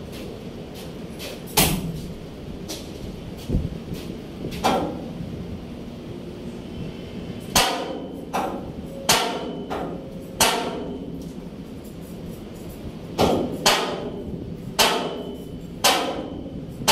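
Sharp metallic impacts, about a dozen at uneven intervals, several of them ringing briefly after the strike.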